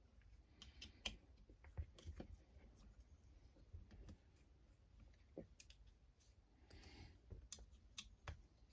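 Small parts of an RC crawler chassis being handled and fitted: faint, scattered clicks with a couple of short scrapes.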